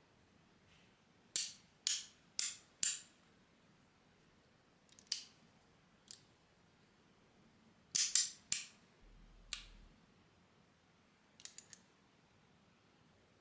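Three-layer copper magnetic fidget slider clicking: sharp metal snaps as its magnetic plates are slid and snap into place. There are four evenly spaced clicks about a second in, a quick cluster of clicks past the middle, and a faint quick triple near the end.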